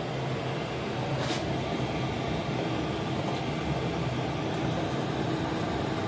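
Diesel air heater of about 5 kW running at full output, a steady mechanical hum with a low drone. A short click about a second in.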